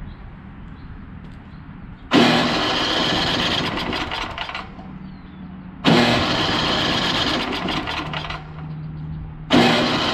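Electric starter cranking the Tecumseh engine of an Ariens snowblower in three bursts of about two to three seconds each, about two seconds, six seconds and nine and a half seconds in. The engine does not catch and run, and it smells strongly of gas.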